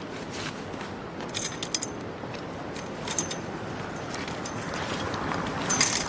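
Light metallic clinks and rattles of small gear being handled, a few scattered clicks over a steady background hiss, busiest just before the end.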